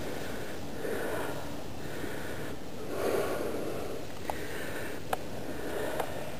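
A hiker breathing hard from the exertion of a steep climb, in slow swells about once a second. A few short sharp clicks come in the second half.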